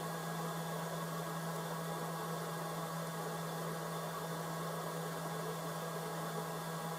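A steady low hum with a constant hiss behind it.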